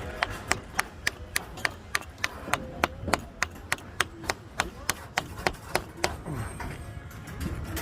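A rapid run of sharp, evenly spaced taps or knocks, about three and a half a second, stopping about six seconds in, with a few fainter knocks near the end.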